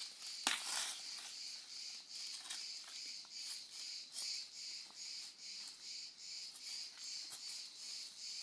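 Insects chirping in a steady high-pitched chorus that pulses about twice a second, with one sharp click about half a second in.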